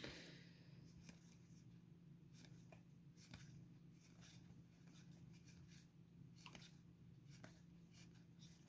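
Near silence with a low steady hum and a few faint, scattered clicks of trading cards being handled and flipped.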